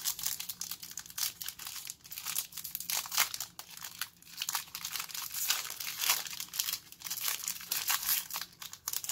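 Foil wrapper of a Donruss Optic football card pack crinkling and tearing as it is worked open by hand: a continuous run of sharp crackles.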